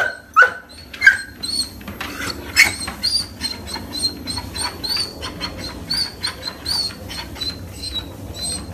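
Dog whining anxiously in many short, high-pitched whimpers while walking on a running treadmill, with scattered clicks and the treadmill's steady low hum beneath; the whining is the dog's anxiety at being kept on the treadmill.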